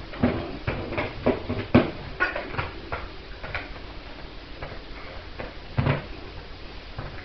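Border collie puppy playing with a toy: scattered light clicks and knocks, coming quickly for the first three seconds, then sparser, with one louder knock about six seconds in.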